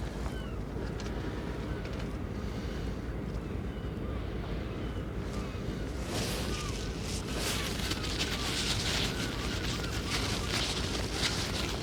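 Outdoor wind rumbling on the microphone, with faint short high chirps scattered through it. About six seconds in, a louder hissing, crackling wash joins.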